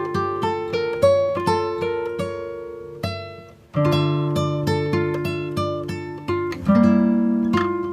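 Background music of gently picked acoustic guitar, one plucked note after another, with a short lull about three and a half seconds in.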